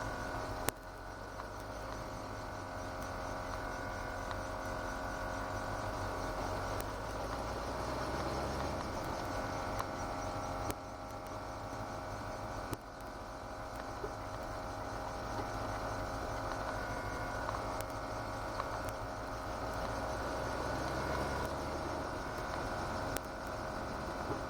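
Ford GT40's V8 engine running at an even, steady pace, heard from inside the car, with a few sharp knocks here and there.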